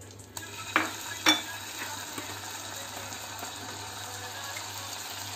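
Butter sizzling in a nonstick kadai with chopped ginger just added, a steady frying hiss. A spoon knocks twice against the pan about a second in.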